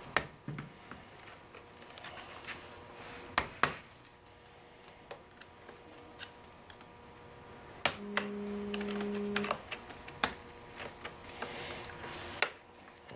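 Scattered light clicks and knocks of a MacBook Pro's aluminium case being handled, turned over and its lid opened. A little past the middle a low steady tone sounds for about a second and a half.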